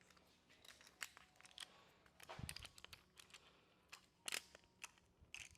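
Faint scattered clicks and rustling of small objects being handled, with a sharper click about a second in and a louder one near the end.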